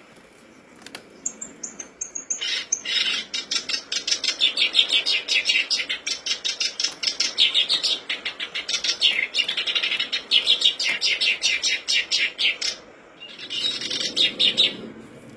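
Black-browed reed warbler (kerak basi alis hitam) singing a long, fast song of rapid, harsh, chattering notes, starting about two and a half seconds in. The song breaks off briefly near the end, then comes back in a short final burst.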